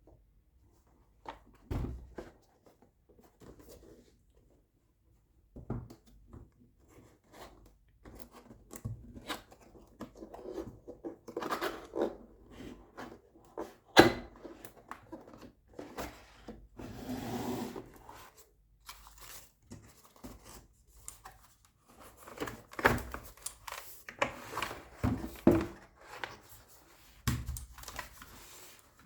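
Cardboard box and plastic packaging being handled and opened: scattered knocks, taps and sliding, with a sharp knock about halfway through and a longer rustle of plastic a few seconds later.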